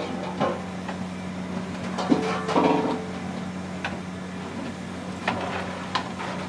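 Long metal ladle stirring and scraping in a large metal cooking pot of gravy, with scattered knocks of the ladle against the pot over a steady low hum.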